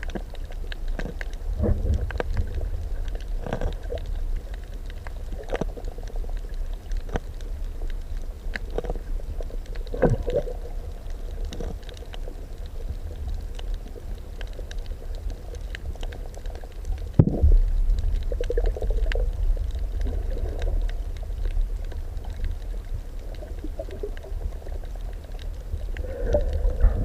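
Muffled underwater noise picked up by a camera filming fish: a steady low rumble of moving water with scattered clicks and pops, and a sharper knock about seventeen seconds in.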